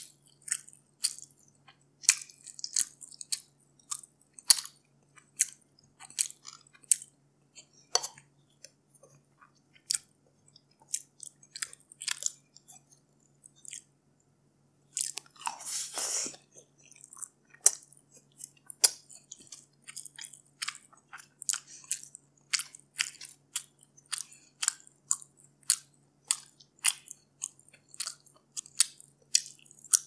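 Close-miked eating of grilled stingray and steamed rice: chewing and many short, wet mouth clicks. About halfway through, a longer, louder stretch of noise as a spoonful goes into the mouth.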